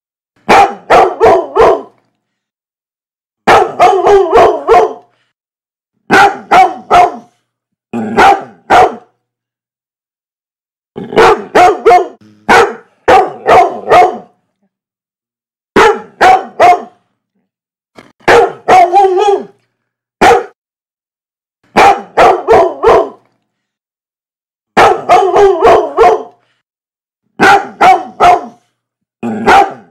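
Dog barking in short rapid volleys of three to five barks each, about a dozen volleys with dead silence between them.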